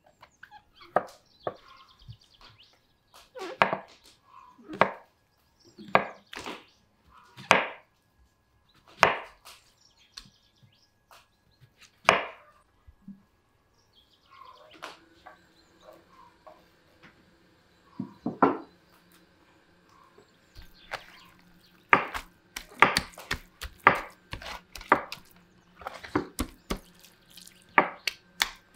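Kitchen knife slicing button mushrooms on a wooden cutting board: a run of irregular knocks, about one a second at first and coming faster in the second half. A faint steady hum sits under the second half.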